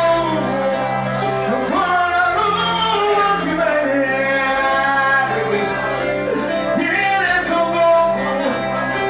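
Loud dance music with singing over a bass line that changes note every second or so.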